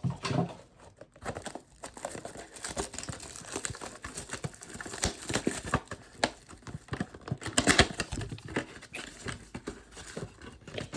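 Plastic wrap crinkling and tearing as a trading-card blaster box is unwrapped and handled, a run of irregular crackles, busiest and loudest about seven to eight seconds in.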